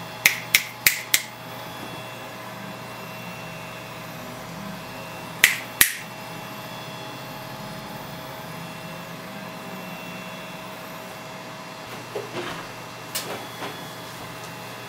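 Rotary delta 3D printer running on LV8729 stepper drivers at 1/128 microstepping: the motors are almost silent, and the steady hum of its cooling fans is the main sound. Sharp clicks stand out above it, four in quick succession at the start, two more about five and a half seconds in, and a few softer ones near the end.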